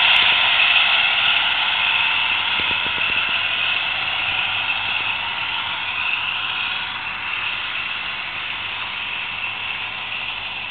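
Roco H0-scale model of a DB class 221 diesel locomotive running with its sound decoder. The engine sound from its small speaker mixes with the rolling of model wagon wheels on track, and all of it fades steadily as the train moves away.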